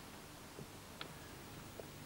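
Faint steady background hiss and hum with a single sharp small click about a second in and a couple of fainter ticks.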